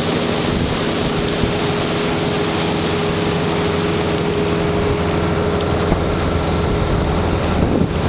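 Motor cruiser's engine running steadily under way, a constant hum beneath a loud, even hiss of water rushing along the hull. The sound shifts briefly near the end.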